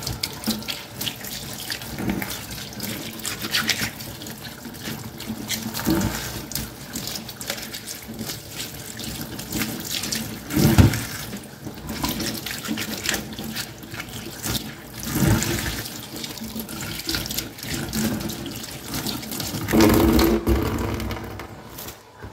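Kitchen tap running onto lettuce leaves held under the stream over a plastic colander, as hands rub each leaf clean. Louder splashes come now and then as leaves are turned and shaken in the water.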